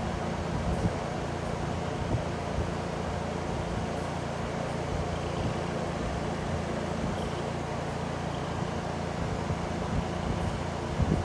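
Electric fan running steadily: a constant whir with a low, even hum beneath it.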